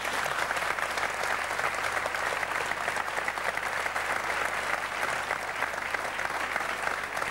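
Studio audience applauding: many hands clapping in a dense, even stream.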